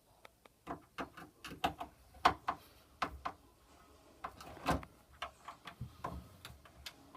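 Irregular clicks and knocks of a new door handle set being screwed tight and handled, metal parts of the knob and latch clicking against the door, with a louder knock about halfway through.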